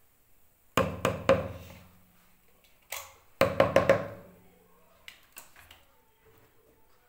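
Hand-held stick blender switched on in short pulses in a plastic bowl of lemon and sugar mixture, three bursts each starting sharply and fading, with knocks of the blender head against the bowl. A couple of light clicks follow about five seconds in.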